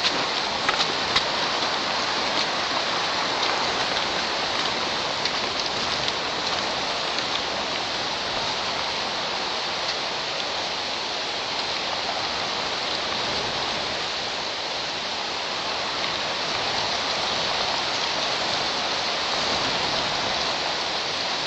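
Steady hiss of rain, with a few sharp drop ticks in the first second or so.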